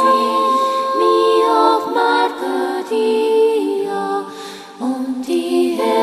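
Music: a slow song with sung, long-held notes, briefly dropping quieter about four and a half seconds in.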